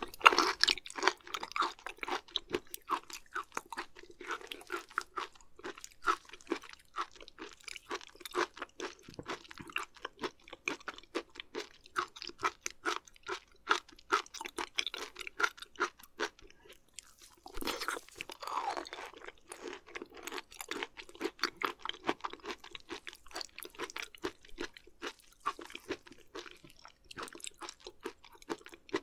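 Close-miked chewing of raw beef liver and omasum: a rapid, irregular stream of wet, crunching mouth clicks. A louder burst comes about two-thirds of the way through, as of a fresh bite.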